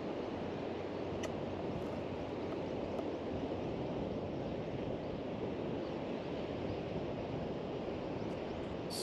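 Steady outdoor noise of wind on the action camera's microphone and water over a shallow reef flat, with a faint click about a second in and a sharper click at the very end.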